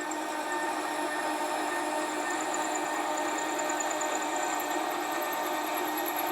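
Sieg SC4 bench metal lathe running steadily, its motor and gearing giving a constant whine with several steady high tones.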